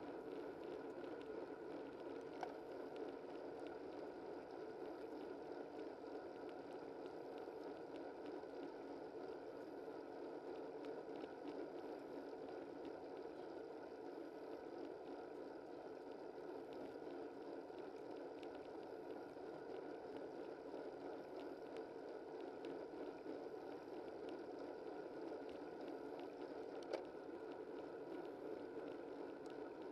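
Steady rushing noise of a bicycle riding on a road, picked up by a camera mounted low on the bike. A faint click comes a couple of seconds in and a sharper one near the end.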